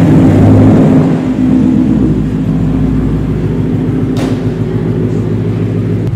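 A car engine running close by, loudest in the first second, then steady and a little quieter. One brief sharp click about four seconds in.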